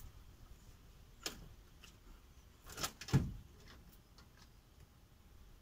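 Car battery terminal clamp being fitted onto the battery post, giving a few short sharp clicks and crackles of sparking on contact, the loudest about three seconds in. The sparking shows that the recharged battery holds charge.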